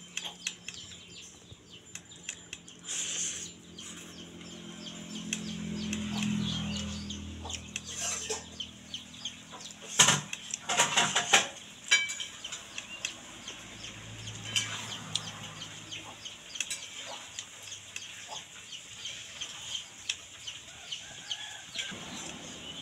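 A person eating rice and curry by hand from a steel plate: chewing, lip smacks and fingers mixing food, with small clicks throughout and a loud cluster of sharp sounds about ten seconds in. Chickens cluck in the background.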